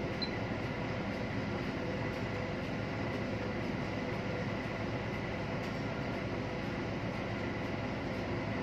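Steady machinery drone: a constant low hum with a faint, even, high whine over it.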